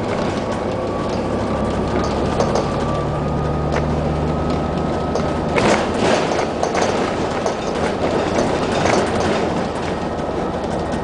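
Bus interior noise while driving: the engine runs steadily under road noise, with the body and windows giving off scattered rattles and knocks, a cluster of them about halfway through. A faint high whine runs under the drone for the first half.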